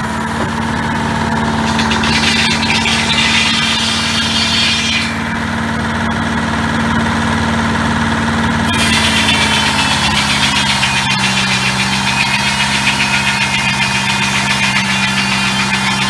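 Diesel engine driving a small circular sawmill runs steadily under load while the big circular blade saws through a log, with a high-pitched hiss from the cut over the engine drone. The hiss stops for a few seconds midway, and the engine note drops slightly later on.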